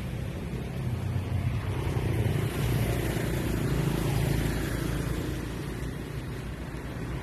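Motorcycle engine running while riding, a steady low hum that swells about two seconds in and eases off after about four and a half seconds.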